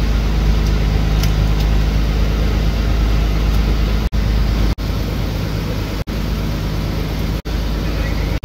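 Fishing boat's engine running steadily with a low hum, heard over the deck. The sound drops out briefly four times in the second half.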